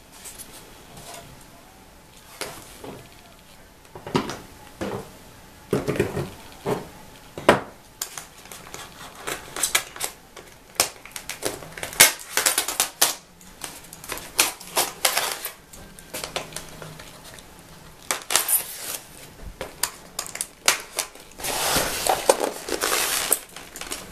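Polystyrene foam packaging trays handled and pulled apart: a string of irregular sharp creaks, knocks and scrapes, with a longer stretch of scraping near the end.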